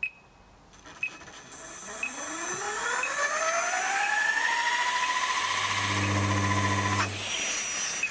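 Small RC autogyro's brushless prerotator motor spinning up the rotor through a 3D-printed gear pinion: a whine that rises in pitch from about two seconds in, levels off, then cuts off suddenly about seven seconds in. A low hum joins shortly before the whine stops.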